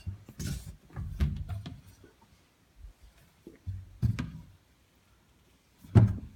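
A handful of scattered knocks and low thumps with handling noise between them, the loudest a sharp knock near the end.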